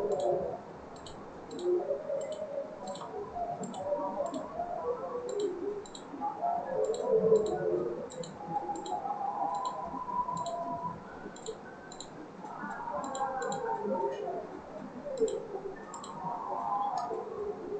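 Computer mouse buttons clicking repeatedly, often in quick pairs, as trim selections are made, over faint, indistinct background sound.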